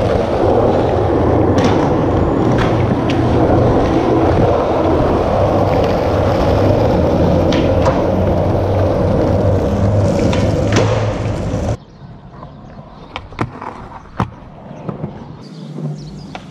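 Skateboard wheels rolling steadily and loudly on a smooth concrete floor, with a few clicks over the roll. About twelve seconds in the sound cuts off suddenly to a much quieter stretch with scattered sharp clacks of a board.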